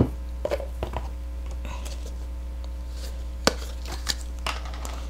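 Plastic rolling pin and Play-Doh tubs handled on a tabletop: scattered light knocks and clicks, the sharpest right at the start as the rolling pin is set down, another about three and a half seconds in.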